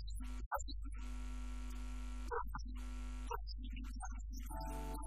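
Steady electrical mains hum, with a man's voice in stretches over it. Music tones come in near the end.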